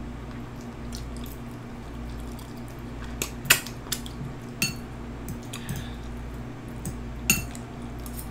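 Cutlery clinking against a plate during a meal: a handful of sharp clicks, some with a brief ring, the loudest about three and a half seconds in and again near the end.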